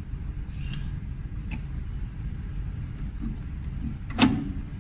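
Steady low rumble with a few faint clicks and one sharp click about four seconds in: handling noise of a welding-machine wire feeder as filler wire is threaded by hand through its guide and rollers.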